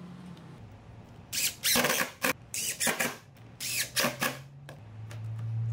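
Cordless drill run into a pine frame rail in three short bursts about a second apart, its motor whine sweeping up and down in pitch. Near the end a steady low hum builds.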